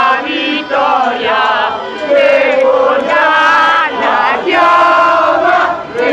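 A group of football fans chanting together, loud and close, in long held notes broken by short pauses every couple of seconds.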